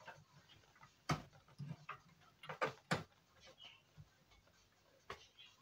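A few sharp clicks and knocks of parts being handled inside a desktop computer case during disassembly. The loudest come about a second in and twice close together near three seconds, with another about five seconds in.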